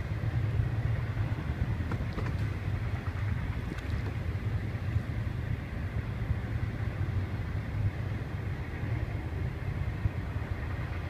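Low, steady rumble of wind buffeting the microphone, with a few faint clicks about two and four seconds in.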